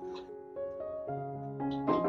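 Gentle background music: a slow keyboard melody of held notes. A brief knock comes near the end.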